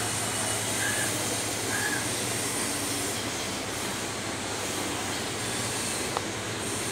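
Steady background noise with a low, even hum and a high hiss, a few short high chirps in the first two seconds and a single sharp click about six seconds in.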